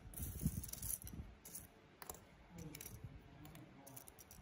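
Loose plastic laptop keycaps rattling and clicking against each other and a wooden desk as a handful is dropped and shuffled, busiest in the first second and a half, then softer scattered clicks and rustling.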